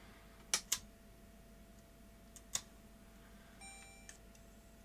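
A few sharp clicks from the opened Sony DCR-HC51E camcorder as it is handled and operated, then a short electronic beep from the camcorder lasting about half a second, about three and a half seconds in.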